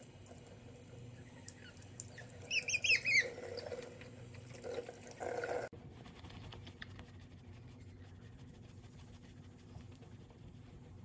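A four-week-old puppy gives a quick run of high squeals about two and a half seconds in, over a running bathroom sink tap. The water cuts off suddenly about halfway through, leaving faint rustling of a towel.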